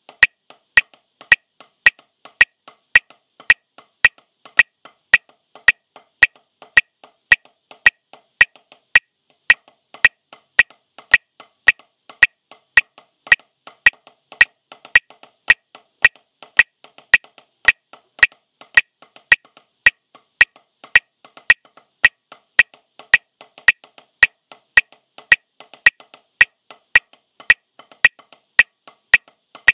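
Wooden drumsticks playing legato strokes on a rubber practice pad: a steady, even stream of sharp taps in a regular rhythm.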